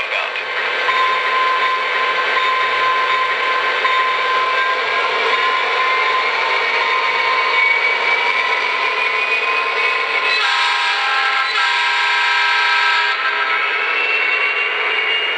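Model diesel locomotive's onboard sound system running a steady diesel engine sound. About ten seconds in the horn sounds twice in quick succession, the second blast longer.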